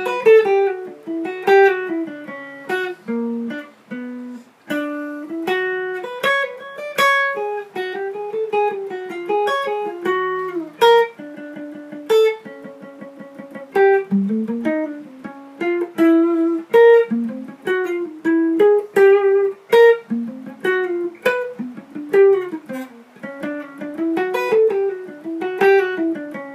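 Guitar played at a slow tempo: a melodic line of picked single notes and paired notes, with a slide up in pitch about halfway through.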